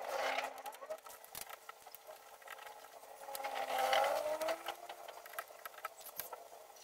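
Small clicks and rustles of electrical wires being handled and fitted at a breaker panel, over a steady faint hum and a wavering background noise that swells about four seconds in.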